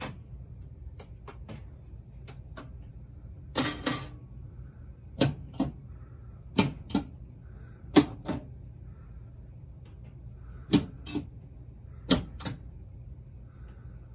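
Gottlieb System 80B pinball machine's relays and solenoids firing one after another in its relay and solenoid test: sharp clacks, mostly in pairs about a third of a second apart, a pair every second and a half or so, over a low hum. Each firing shows the repaired MPU board driving the driver board correctly.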